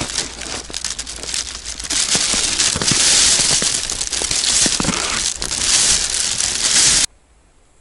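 Thin plastic carrier bag crinkling and rustling loudly as it is handled close to the microphone, a dense crackle of sharp clicks. It cuts off abruptly about seven seconds in.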